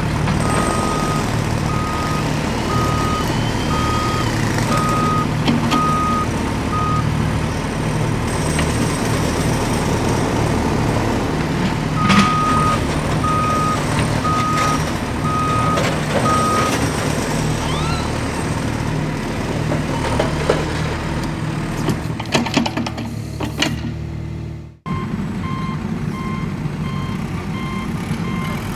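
A truck's reversing alarm beeping at a steady pace, about once a second, over a low, steady engine rumble, with a pause in the beeping in the middle. A few knocks come near the end, then after an abrupt cut a lower-pitched reversing beep carries on.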